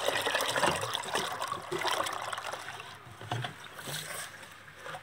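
Water poured from a jug into an aluminium pot of soaked chana dal, splashing onto the lentils to rinse them; the pour is loudest for the first two and a half seconds, then tapers into quieter sloshing.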